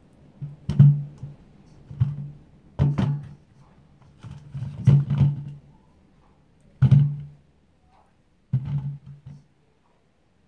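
Whole sweet potatoes being set down and shifted against a metal bowl: six dull thunks at uneven intervals, each ringing briefly low.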